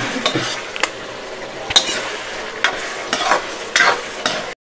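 A metal spatula stirring and scraping potatoes and whole onions through thick frying masala in a steel kadhai, with a low sizzle under several sharper scrapes against the pan. The sound cuts off suddenly just before the end.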